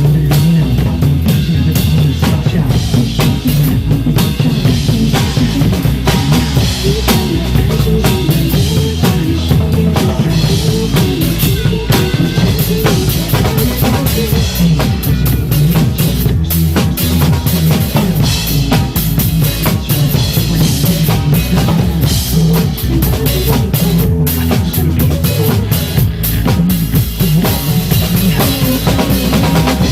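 Drum kit played live along to a recorded pop song: a steady beat of bass drum and snare over the song's music.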